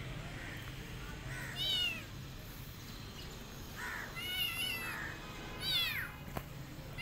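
Calico kitten meowing three or four times, high-pitched calls that slide down in pitch, about every one and a half to two seconds.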